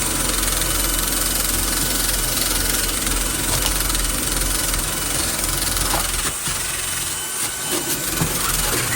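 A motor running steadily with a low hum and an even hiss. The low hum dips for about a second, around six to seven seconds in, then returns.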